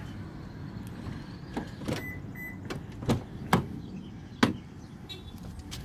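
Scattered clicks and knocks of a car door being handled and opened, the loudest about four and a half seconds in, with two short high beeps about two seconds in, over a low steady hum.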